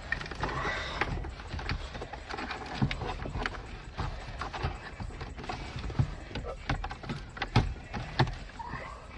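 Irregular knocks and clicks of a car radio head unit and its wiring bundle being pushed into the dashboard opening, plastic and metal bumping as the unit goes in, with several sharper knocks about three, six, seven and a half, and eight seconds in.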